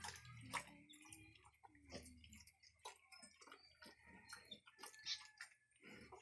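Faint, irregular wet clicks and smacking from piglets suckling at a sow, with a few brief high squeaks among them.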